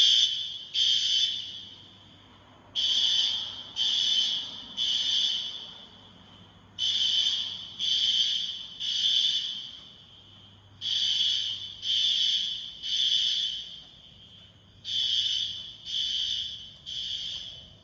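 System Sensor SpectrAlert Advanced fire alarm horn sounding very loud in the temporal-three evacuation pattern: groups of three shrill blasts about a second apart, each group followed by a pause of about two seconds, repeating over and over.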